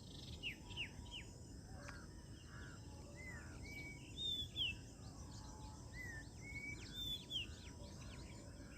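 Several birds calling: many short falling chirps and a few clear whistled notes over a steady low background noise. The loudest notes come around the middle and again near the end.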